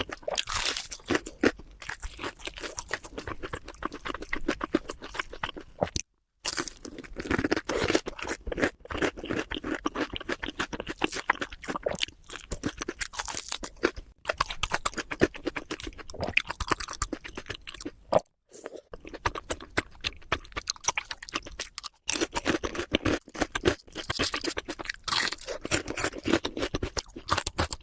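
Close-miked chewing and crunching of food: a dense run of crisp crackles and wet mouth sounds, broken by two brief total silences about six and eighteen seconds in.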